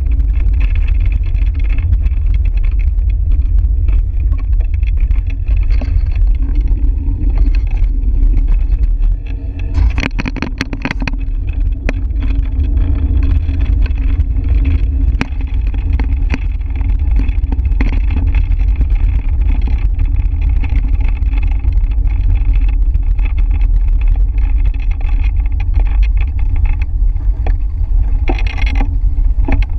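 Wind noise on the microphone of a camera mounted on a moving bicycle, a steady low rumble. A run of sharp clicks and rattles comes about ten seconds in.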